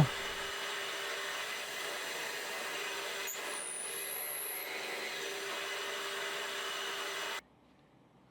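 Pillar drill (drill press) motor running steadily with a constant whine, cutting off abruptly near the end.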